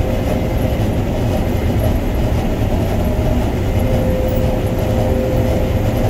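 Combine harvester running under load, heard from inside the cab: a steady low mechanical rumble with a steady whine over it. The green John Deere corn head is feeding flattened, down corn.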